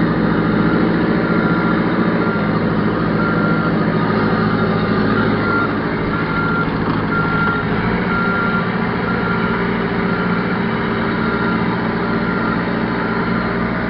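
Backhoe's engine running steadily under a back-up alarm beeping about twice a second: the machine is reversing.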